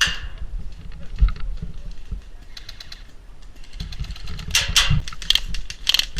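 Airsoft guns firing in short bursts of rapid clicking, loudest in the second half, over a low rumble.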